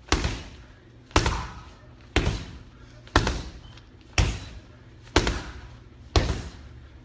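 Boxing-gloved hooks landing on a hanging heavy bag: seven loud, evenly spaced thuds, about one a second, each with a short ringing tail.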